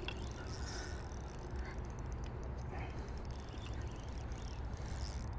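Spinning reel being wound in steadily against a hooked fish, over a steady low rumble.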